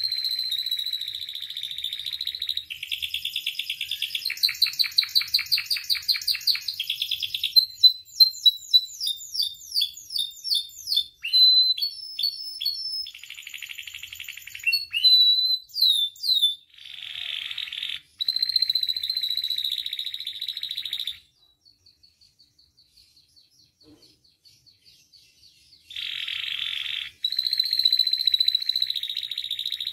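Domestic canary singing a long, loud song of fast rolling trills, with a run of quick sweeping whistled notes partway through. It drops to soft faint notes for a few seconds late on, then resumes trilling.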